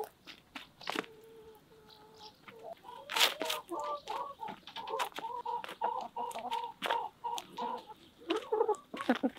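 Hens clucking softly in a run of short, low calls while pecking at pizza, with a few sharp taps of beaks striking the crust.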